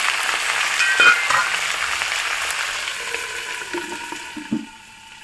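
Potato and green banana pieces sizzling in hot oil in a karahi. As a steel lid is set on the pan, the sizzle turns muffled and fades, with a couple of light knocks of the lid near the end.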